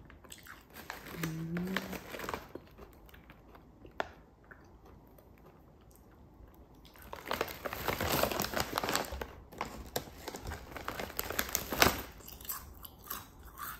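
Potato chips crunching and foil chip bags crinkling as hands dig into two open bags of Poca Chip potato chips, densest from about seven seconds in until near the end.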